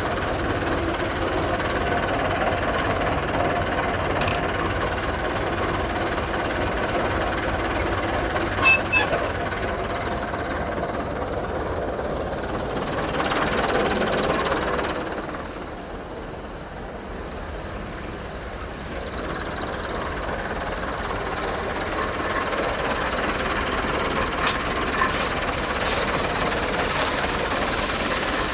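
Diesel tractor engine running steadily, with a few sharp knocks about 4 and 9 seconds in and a hiss rising near the end.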